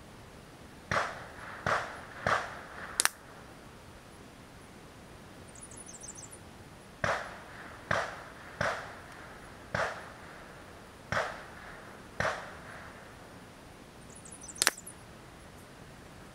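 Shots from a .177 Avenger PCP air rifle heard downrange at the target: a string of about ten reports in two bursts, each with a short ringing tail. There are two sharper cracks, about three seconds in and near the end.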